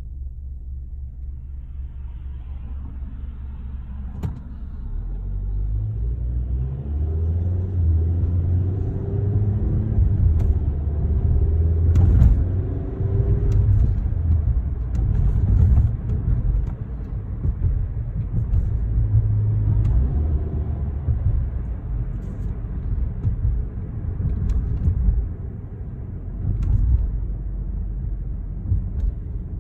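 2013 Chevrolet Sonic being driven: a low engine and road rumble that grows louder about five seconds in, with the engine note rising as the car speeds up, then rising again later.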